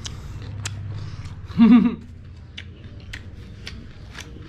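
Mukbang eating sounds: scattered sharp mouth clicks and smacks of chewing. About one and a half seconds in comes a short, loud voiced sound from the eater, the loudest thing here.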